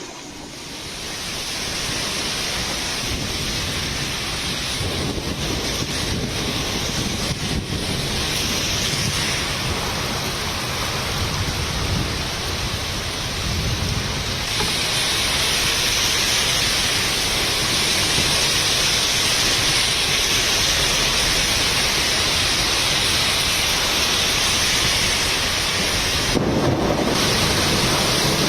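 Heavy rain pouring down in a storm with strong wind: a dense, steady hiss that grows louder about halfway through.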